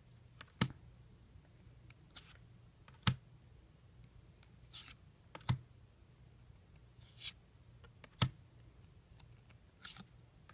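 Weiss Schwarz trading cards being handled one at a time as a pack is gone through. A soft swish of a card sliding off the stack is followed by a sharp click or snap, about every two and a half seconds, five times.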